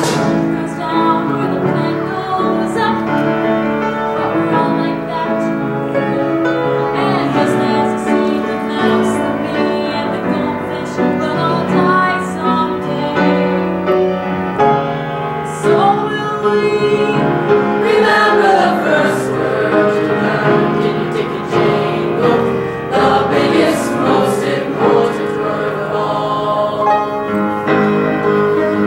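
A group of voices singing together in chorus with piano accompaniment.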